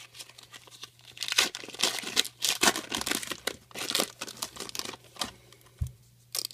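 Foil trading-card pack wrapper crinkling and tearing as it is opened and the cards are pulled out: a rapid run of crackles that thins out after about five seconds.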